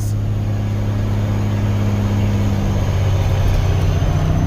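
Diesel engine of a loaded grain semi truck, heard from inside the cab, droning steadily; its note shifts near the end.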